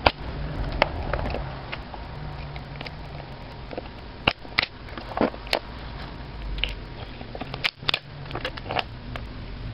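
Pliers clicking and crunching against the thin metal casing of a 9-volt battery as it is pried and cut open, in irregular sharp snaps with a cluster about four to six seconds in and another near eight seconds.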